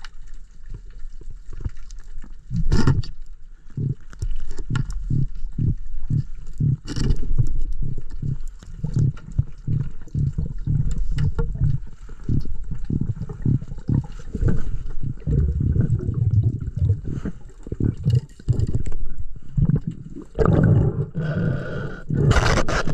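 Muffled underwater noise picked up during a dive: a rapid, irregular run of low thumps and knocks from water and movement, with a few sharper clicks and a louder, fuller rushing stretch near the end.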